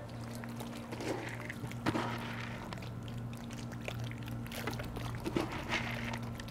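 Water sloshing with a few light splashes as young alligators move about in a shallow pool, over a steady low hum.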